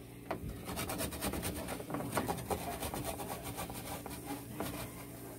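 A garlic clove being grated on a flat stainless-steel hand grater, in repeated quick strokes of the clove across the metal teeth.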